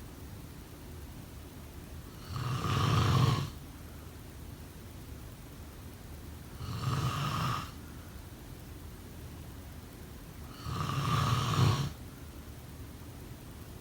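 A person snoring in a steady rhythm: three snores about four seconds apart, each lasting about a second.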